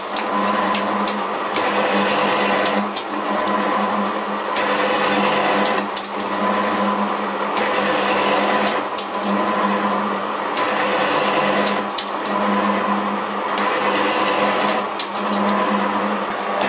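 Elliott metal shaper running on a 13-inch stroke, its tool planing the edge of angle iron plate. A steady motor hum under a cycle that repeats about every three seconds, with sharp clicks around each change of stroke.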